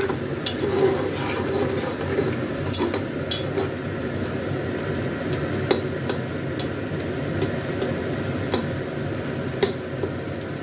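A spoon stirring beef in masala in an open metal pressure cooker, knocking and scraping against the pot in irregular sharp clicks, over a steady sizzle of the meat frying.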